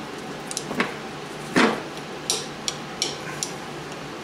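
Metal-on-metal clinks and clicks of a hand tool working at the cotter pin of a steel roller chain's half link, about half a dozen sharp taps, the loudest about one and a half seconds in.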